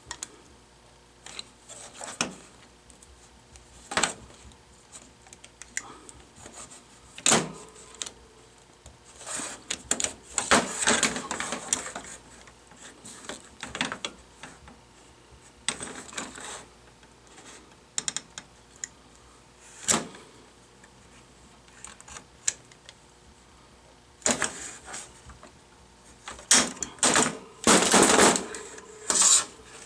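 Hand rivet gun being worked to set a rivet holding the door handle in the door: scattered sharp metal clicks, with denser runs of clicking about a third of the way in and again near the end.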